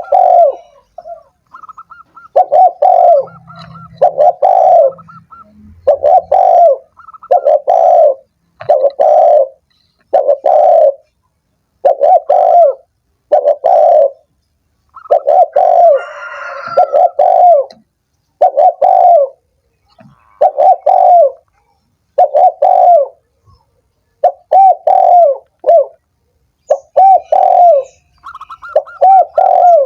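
Spotted dove (tekukur) cooing over and over, a loud coo phrase about every two seconds. A faster, higher chirping runs under it at times.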